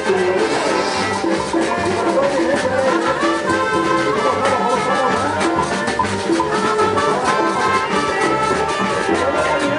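Brass band music, with trumpets and trombones over drums, playing a steady Latin dance beat.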